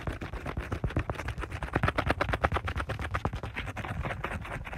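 Rapid scrubbing strokes on an iPad's glass screen while erasing handwriting with a small eraser tool: a fast, irregular run of scratchy taps and rubs.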